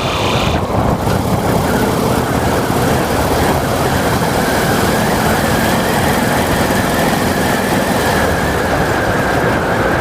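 Harley-Davidson Road King's V-twin running on the move under steady wind and road noise, with a faint steady whine that becomes clearer about four seconds in: the noise that appeared after EBC discs were fitted to the front brakes.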